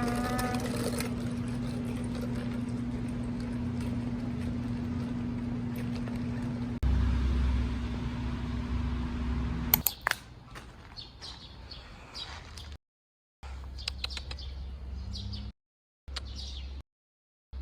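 A steady mechanical hum with a low rumble for about ten seconds, then birds chirping over a quieter street background in several short clips, broken by three brief drops to silence.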